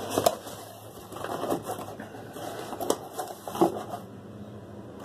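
Cardboard box being opened and handled: rustling and scraping of cardboard with a few sharp taps and clicks, strongest in the first second and again around three to four seconds in.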